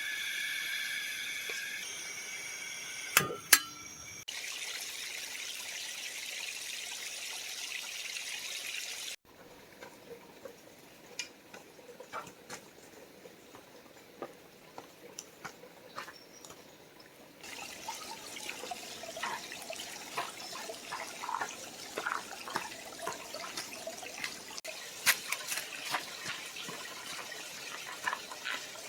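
Creek water running and trickling, with scattered small clicks and knocks over it. Two sharp knocks stand out about three seconds in, and the water sound changes abruptly several times.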